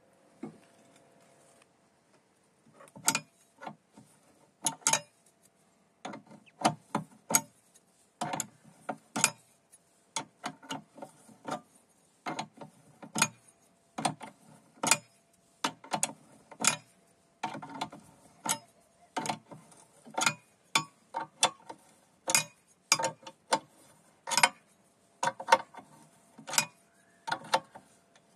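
Open-end steel spanner clicking and clinking on a hex nut as it is lifted off and re-set stroke by stroke, tightening a bolt into a steel plate. The clicks begin a few seconds in and come irregularly, about one or two a second, often in pairs.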